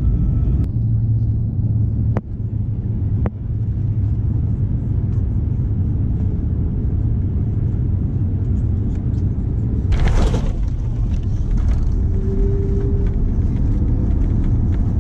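Cabin noise of an Airbus A350 landing: a steady low rumble of engines and airflow, with a short, loud rush of noise about ten seconds in, close to touchdown.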